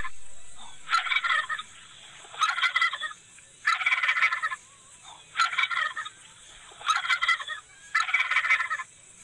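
Male turkey (tom) gobbling repeatedly, about six gobbles, each a quick rattling burst under a second long, while in full display with its tail fanned.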